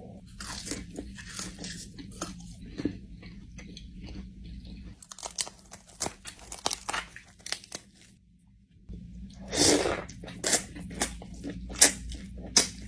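A person biting into and chewing crispy spicy chicken wings: a run of sharp, crisp crunches with short pauses, a quieter stretch about eight seconds in, and one louder burst of crunching just before ten seconds.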